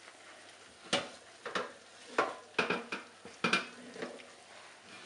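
Metal roasting tray clanking and scraping against the oven's wire rack as it is slid along it: about seven sharp metallic knocks in the middle seconds.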